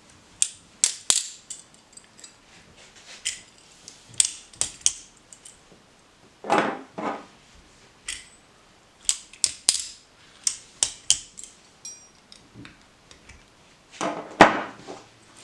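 Stainless steel balisong being handled: scattered sharp metallic clicks and clacks from its handles and latch, with two louder clacks about halfway and near the end.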